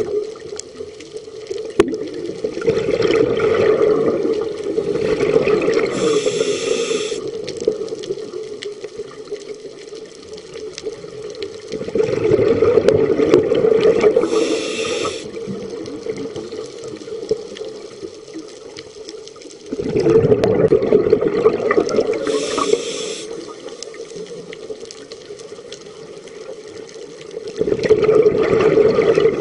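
Scuba diver breathing through a regulator: a short hissing inhale, then a long rush of exhaled bubbles, repeating about every eight seconds.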